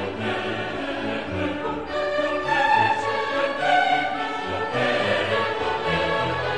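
Background music: a choir singing sustained notes over orchestral accompaniment.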